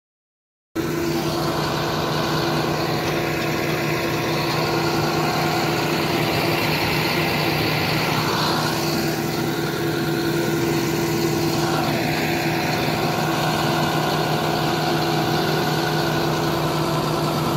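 John Deere tractor engine running at a steady speed, a constant low drone, which comes in abruptly less than a second in.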